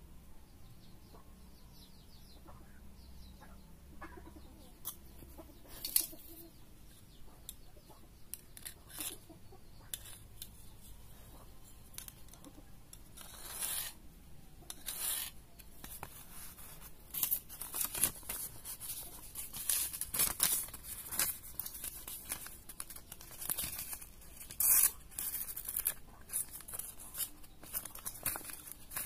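Irregular short scrapes and clicks of hand work, sparse and faint at first, coming thicker and louder from about halfway through.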